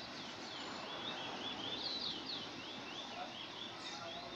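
Trinidad bullfinch (chestnut-bellied seed finch) singing a fast, high warbling phrase of quick rising and falling notes, several a second, that runs most of the way through.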